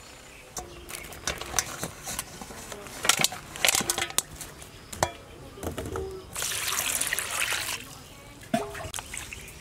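Dead bats handled and dropped into a metal basin, with scattered soft knocks and rustles, then water poured into the basin for about a second and a half, a hissing rush that stops abruptly.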